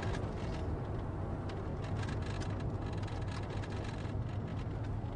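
Steady low rumble of a taxi cab driving, its engine and road noise heard from inside the cab.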